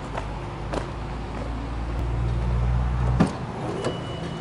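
Subaru Impreza WRX STi's turbocharged flat-four boxer engine idling steadily, its low hum swelling for a moment. A sharp click about three seconds in as the car's door is opened.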